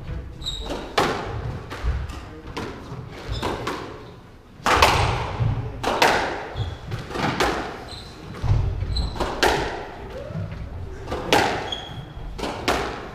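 Squash rally: the ball being struck by rackets and hitting the walls of a glass-backed court, sharp hits about once or twice a second that ring in the hall, with a short lull partway through. Brief high squeaks of court shoes on the wooden floor between shots.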